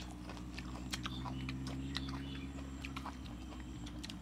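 A person chewing food with lip smacks, a quick irregular string of small wet clicks, over a steady low hum.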